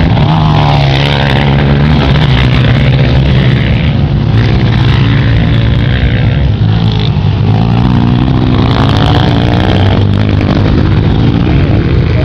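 Honda CRF230 dirt bike's air-cooled four-stroke single-cylinder engine running hard, revving up and down, with the pitch climbing about eight seconds in.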